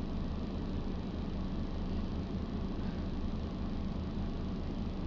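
Steady low hum of a van's running engine heard inside the cabin, with an even low pulse.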